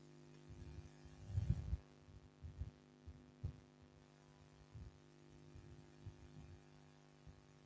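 Steady low electrical hum with scattered soft, low thumps, the loudest about a second and a half in.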